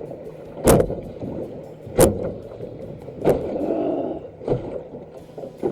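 Five sharp knocks on an aluminium jon boat hull, evenly spaced about a second and a quarter apart, with a low murky noise between.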